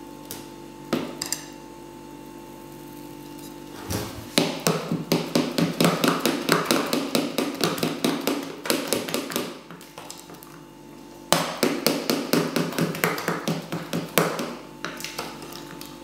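Metal utensil beating yogurt-cake batter in a ceramic bowl, clinking rapidly against the bowl several times a second. It comes in two bouts: from about four seconds in to about ten, and again from about eleven seconds to fifteen.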